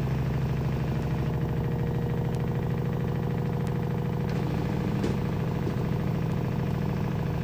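LG front-loading washing machine running mid-cycle with a steady low hum. The newly replaced pump gives none of the loud buzzing it made at this stage before the replacement.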